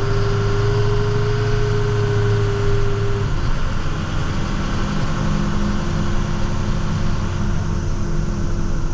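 Plow truck's engine running steadily, heard from inside the cab while the truck drives slowly in second gear spreading salt. About three seconds in, the engine note drops slightly and changes.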